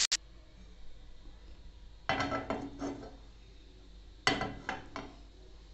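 A cooking utensil clinking against cookware in two short runs of several clinks, about two seconds in and again about four seconds in, as fried fish pieces are lifted out of the frying pan.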